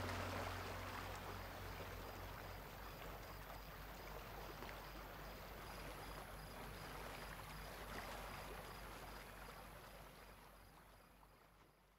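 The last hummed note dies away in the first second, leaving a steady, even rushing of outdoor background noise that fades out gradually to silence near the end.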